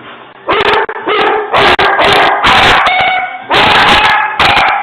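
A dog barking loudly and repeatedly, in a quick string of barks starting about half a second in.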